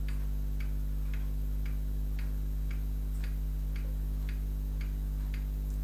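Even, regular ticking, about two ticks a second, over a steady low hum.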